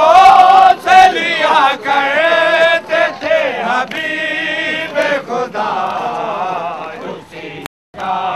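Men chanting a noha, an Urdu lament for Imam Husain, together in a group with a sung, melodic line. The sound cuts out for a moment near the end.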